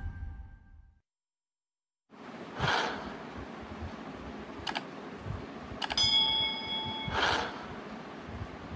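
Stock subscribe-button sound effects: a short whoosh, a mouse click, then a double click followed by a brief notification-bell ding, and a second whoosh, over a low steady hiss. The intro music fades out at the start, followed by about a second of silence.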